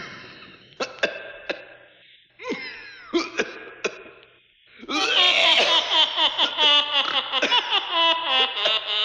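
Recorded laughter from a Halloween sound-effects record: a few short separate bursts in the first four seconds, then a long, rapidly pulsing cackle from about five seconds in.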